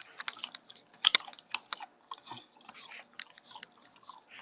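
A person biting and chewing a mouthful of raw salad: a string of sharp, crisp crunches, the loudest about a second in.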